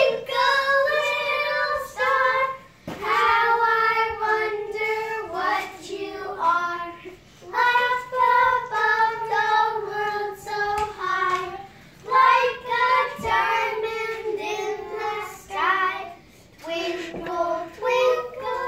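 Several young children singing a song together, in short phrases with brief pauses between them.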